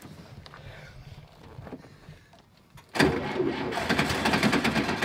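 An old Volkswagen Beetle's air-cooled flat-four being cranked on the starter. The sound begins suddenly about three seconds in and goes as a rapid, even churning. The engine turns over but does not catch.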